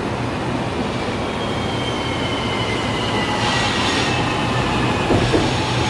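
Electric rail train running past, a steady rumble with a low hum and a thin high whine that slowly falls in pitch.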